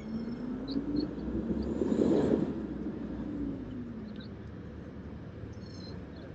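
A vehicle passing by, swelling to its loudest about two seconds in and fading as its engine pitch drops.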